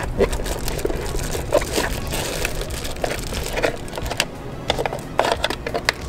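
Packaging crinkling and rustling, with irregular clicks and knocks, as the new speakers are unwrapped and handled.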